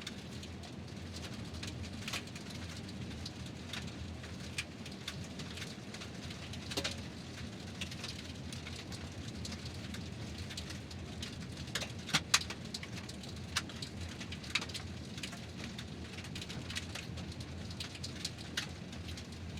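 Car tyres rolling over gravel: a steady low rumble of tyre and road noise with scattered sharp ticks of stones crunching and flicking, a few louder ones about twelve seconds in.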